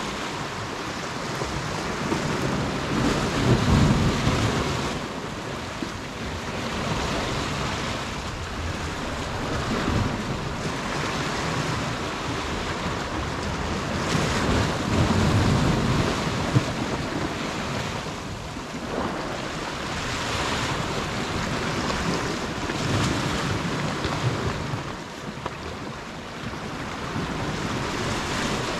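Sea washing against the rocks with wind buffeting the microphone, swelling in gusts about four seconds in and again around fifteen seconds.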